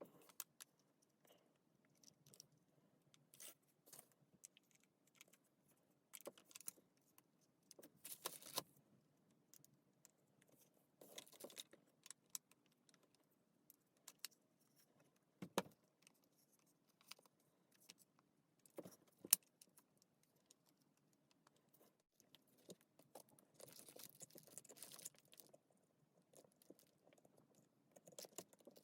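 Scattered light clicks, taps and short metallic rattles of small parts and hand tools being handled, with a few brief rustling stretches and no motor running.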